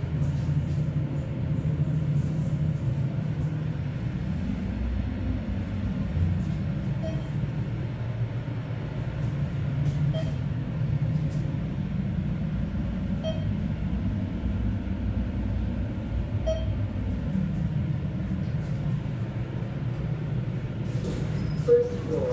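ThyssenKrupp elevator car travelling to the ground floor, a steady low rumble of the ride. A faint short beep comes about every three seconds, and a brief chime sounds near the end as the car arrives and its doors open.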